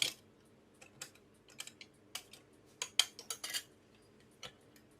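Sharp, light metallic clicks and clatter from a CPU socket's load plate and retention lever being closed and latched over a freshly seated processor, with a loud click at the start and a quick run of clicks about three seconds in.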